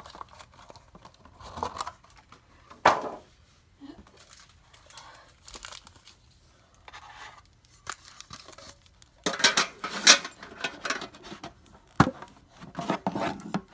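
Foil Pokémon booster packs rustling and crinkling as they are handled, in scattered bursts that grow denser about nine seconds in, with one sharp tap a few seconds later.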